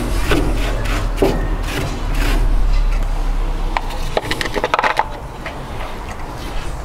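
Tongs and an oiled kitchen towel rubbing and scraping over a barbecue grate at the start, then a few sharp clicks and knocks about four to five seconds in, over a low rumble.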